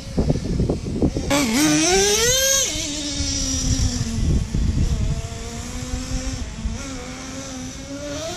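Traxxas T-Maxx 3.3 nitro RC truck's small two-stroke glow engine revving up hard a little over a second in, its whine climbing steeply, then easing to a lower, fairly steady pitch, with another climb near the end. A dense low rumble sits underneath.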